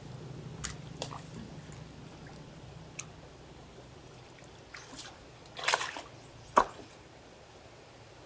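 Scattered small water drips and splashes with a few light knocks, the loudest a sharp splash or knock about six and a half seconds in, over a low hum that fades during the first two seconds.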